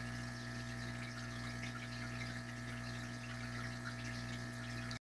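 Steady electrical hum, several held tones at once over a faint even hiss.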